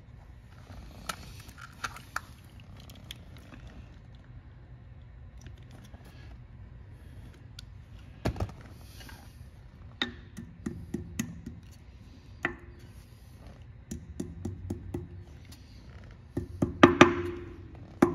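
Ball-peen hammer tapping metal at a car's front wheel hub, on the axle nut and cotter pin. A few light clicks come first and one knock about halfway. Then come scattered sharp taps, many with a short metallic ring, and a quick run of louder taps near the end.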